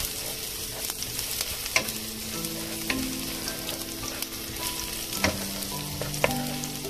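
Minced garlic sizzling in hot oil in a frying pan as it is sautéed toward golden brown, stirred with a wooden spatula that gives a few sharp clicks against the pan.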